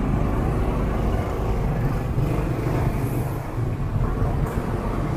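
Steady engine and road noise of a motorcycle riding slowly in city traffic, with the surrounding motorcycles and cars mixed in.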